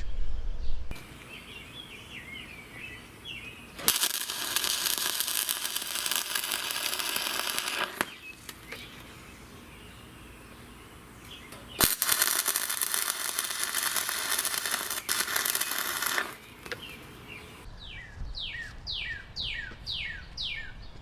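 Two stretches of arc welding, each about four seconds long, with a steady crackle, as the parts of a homemade cant hook are welded together. Near the end a bird chirps a quick series of about six falling notes.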